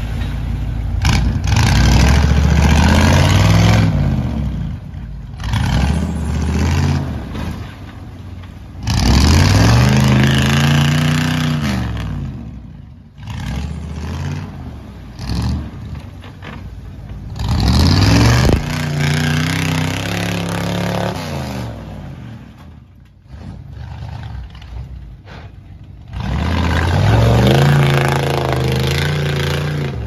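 Lifted pickup truck's engine revving hard in about five long bursts, each climbing and falling in pitch, as its oversized mud tyres churn through deep mud and water and claw up a creek bank.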